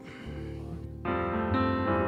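Keyboard playing soft, sustained chords, with a new, louder chord coming in about a second in.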